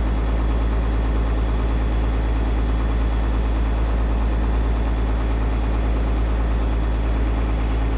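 Boat engine running steadily, a loud continuous low hum with a wash of noise over it, as heard on board.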